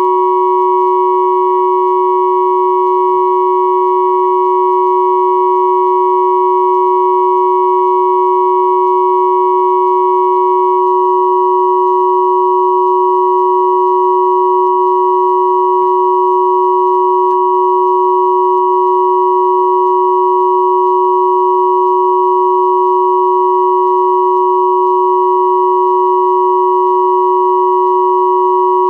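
Steady electronic pure sine tones at 369, 963 and 1111 Hz sounding together as one unchanging chord, with a few faint higher tones that drop out about ten seconds in.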